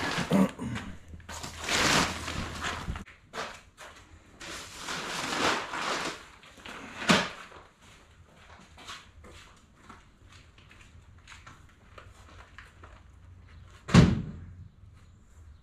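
A plastic tarp rustles and crinkles as it is pulled back off bags of seed corn. Scattered light footsteps and knocks follow, then a single loud thump about 14 seconds in.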